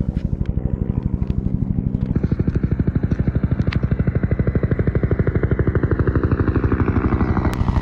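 Huey-type military helicopter flying low overhead, its two-bladed main rotor beating loudly and steadily at about ten beats a second. The beat grows fuller about two seconds in as it comes closer.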